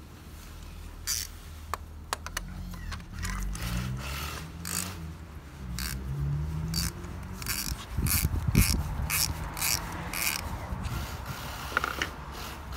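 Ratchet wrench with a socket clicking in a series of short back-and-forth strokes, coming about two to three a second in the second half, as a spark plug is worked in the cylinder head.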